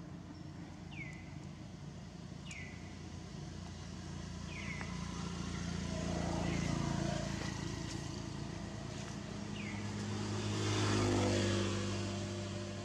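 Two motor vehicles driving past, one after the other, each swelling and fading over a few seconds, the second louder. A short falling chirp repeats every second or two over them.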